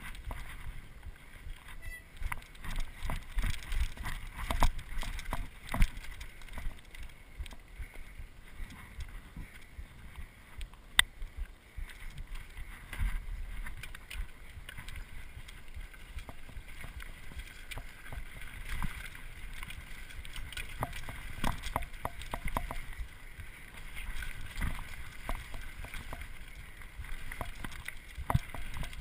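Mountain bike riding down a dirt singletrack: a steady low rumble of tyres on dirt with frequent rattles and knocks from the bike over bumps, and one sharp click about eleven seconds in.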